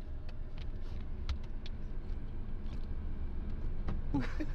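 Steady low rumble of a car heard from inside the cabin, with scattered light clicks and taps.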